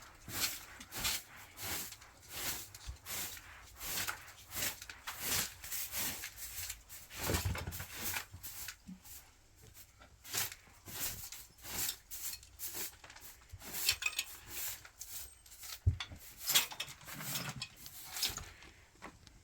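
Irregular scraping and rubbing sounds, one or two a second, with a few sharper knocks.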